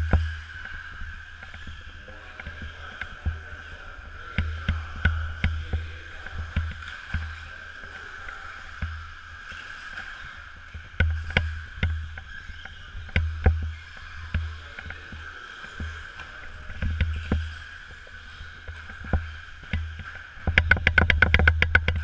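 Radio-controlled short-course cars racing on an indoor dirt track: a steady high motor whine with scattered clicks and knocks and low thumps. Near the end comes a fast run of clicks, about a dozen a second, the loudest part.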